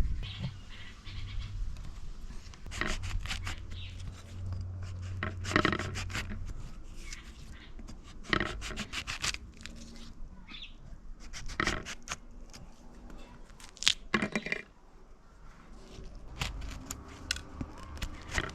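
Irregular scrapes, knocks and clicks of fresh fruit being cut open and scraped by hand for juice.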